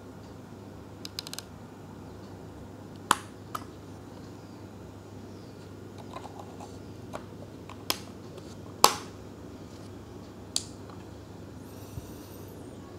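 Scattered sharp clicks and snaps from handling a Canon EOS R5 as a CFexpress card is pushed into its slot, the loudest about three and nine seconds in, over a faint steady low hum.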